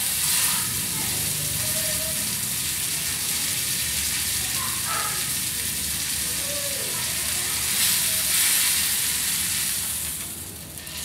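Pork steak sizzling in hot oil in a metal pan as it is seared and held with tongs: a steady frying hiss that drops briefly near the end as the steak is lifted off the pan.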